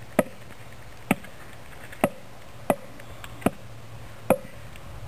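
Wooden stake being driven into the ground with a wooden mallet: seven sharp knocks, a little under a second apart.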